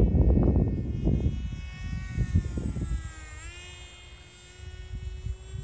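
Electric motor and 6045 propeller of an Eachine Micro Skyhunter RC plane buzzing in flight. Its pitch dips briefly about three seconds in, then holds steady. A loud low rumble at the start dies away over the first three seconds.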